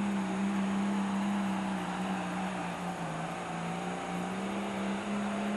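Super stock John Deere pulling tractor's turbocharged diesel engine running flat out under load as it pulls the sled. Its steady pitch sags a little midway, then climbs back.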